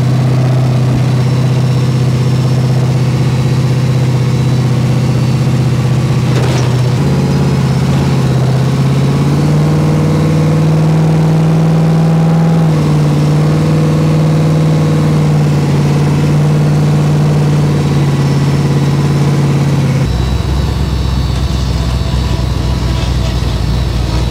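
Diamond T truck's engine running under way, heard from inside the cab with no door glass fitted. The engine note climbs from about seven seconds in and drops back near twelve seconds. There is a brief knock or bump at about six seconds, and the sound turns to a deeper rumble about twenty seconds in.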